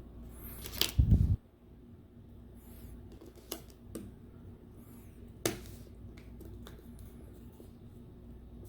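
Light clicks and taps of small tablet parts and screws being handled during reassembly, with a dull thump about a second in, the loudest sound.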